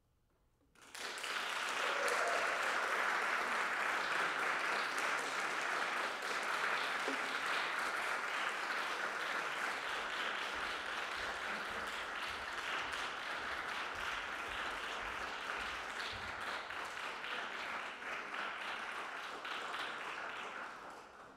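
Audience applauding: the clapping breaks out about a second in, holds steady and dies away near the end.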